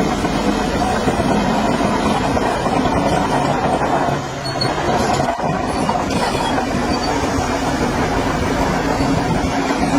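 Shantui crawler bulldozer at work: its diesel engine running under load with the metallic clatter of its steel tracks, easing off briefly about four seconds in.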